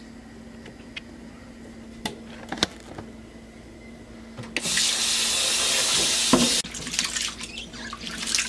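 Kitchen sink tap running hard into a glass bowl of rice for about two seconds, starting about halfway through, after a few light knocks. Then quieter, uneven splashing as hands wash the rice in the water.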